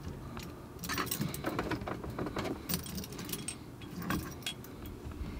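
Car keys jingling on their ring in the ignition: a scattered run of light metallic jingles and clicks.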